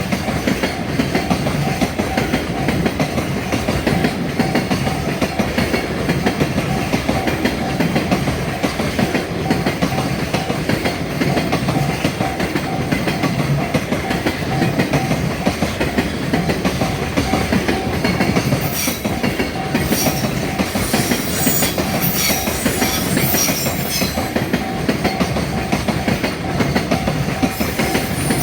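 JR freight train of container wagons passing at speed, a continuous rumble of wheels on rail, with a level-crossing bell's steady tone ringing through it. From about two-thirds of the way in, sharper clatter of wheels over rail joints comes through.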